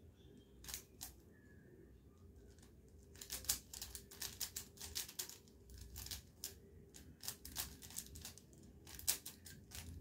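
Plastic 3x3 Rubik's cube being turned fast in the hands during a timed solve: a couple of clicks about a second in, then quick runs of irregular plastic clicks and clacks from about three seconds on.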